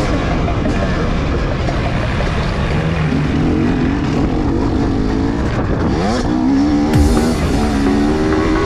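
Motocross bike engine revving, its pitch rising and falling with the throttle, with a thump near the end. Music plays over it.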